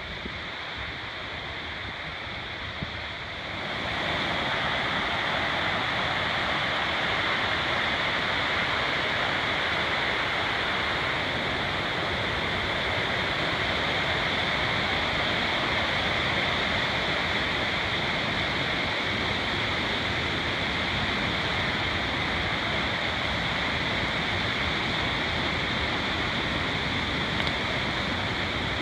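Rushing creek water cascading down a forested ravine, a steady even rush that grows louder about three and a half seconds in and then holds.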